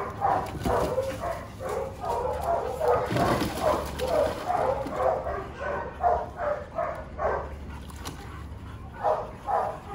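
Chow chows barking and yipping over and over in play. About three seconds in there is a burst of splashing as one dog wades into a plastic paddling pool.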